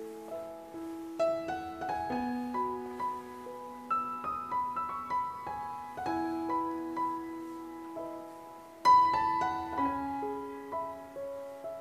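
Background piano music: a slow melody of single notes that ring and fade, with a louder chord struck about nine seconds in.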